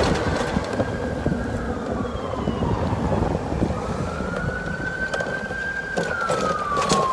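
Emergency-vehicle siren wailing, its pitch falling slowly, rising again about halfway through, then falling once more, over street traffic noise.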